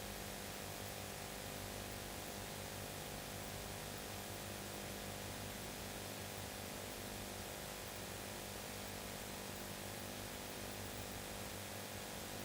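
Steady VHS tape hiss with a low mains hum underneath, unchanging throughout: the noise floor of a videotape playback with no programme sound.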